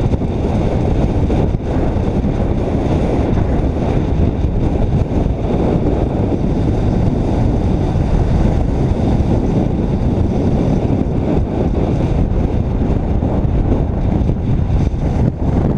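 Steady wind and road noise on the microphone of a camera mounted on a car moving at road speed: a constant low rumble without any distinct events.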